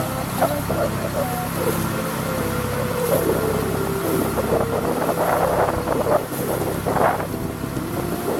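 Boat engine running steadily, with indistinct voices over it.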